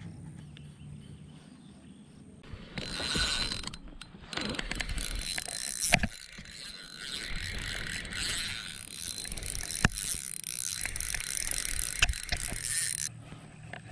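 Fishing reel being cranked, a fast ratcheting whir that runs for about ten seconds, with a few sharp clicks along the way.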